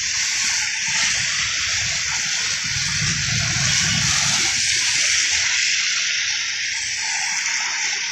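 Steady hiss of tyres on a wet road as a stream of cars and motorbikes passes, with engine rumble swelling and fading as each vehicle goes by.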